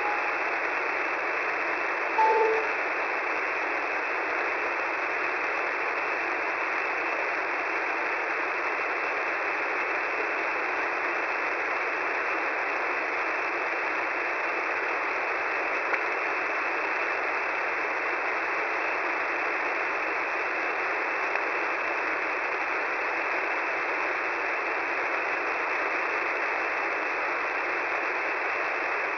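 Shortwave radio receiver tuned to 10755 kHz giving steady static hiss with a narrow, telephone-like tone, and a short tone blip about two seconds in.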